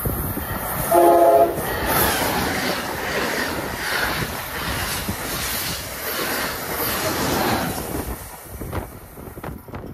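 Amtrak Acela Express high-speed trainset passing through: a brief horn blast about a second in, then the train rushing close by, its wheels clattering rhythmically over the rail joints before fading near the end.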